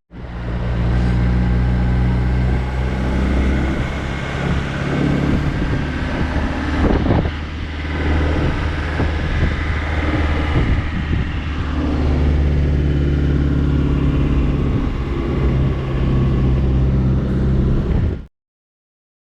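Motor vehicle driving: a steady low engine drone with road noise that eases off in the middle and comes back, then cuts off suddenly near the end.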